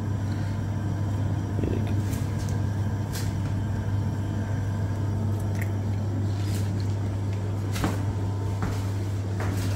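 Steady low electrical hum of a kitchen motor or appliance, with a few faint light taps.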